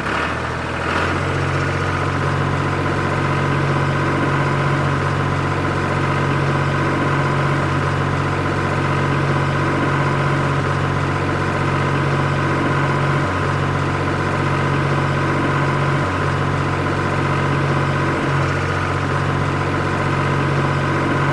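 Tractor engine running at a steady speed, with slight dips in its note now and then.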